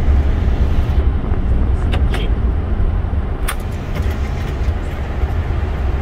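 Boeing 747 flight-deck noise during the landing rollout: a steady low rumble with rushing air and wheel noise as the airliner rolls down the runway. A few short clicks come about two and three and a half seconds in.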